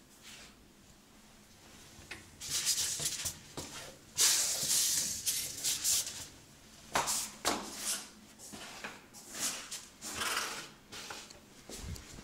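Irregular rustling and rubbing handling noise in bursts, loudest about four seconds in, with a few sharp clicks.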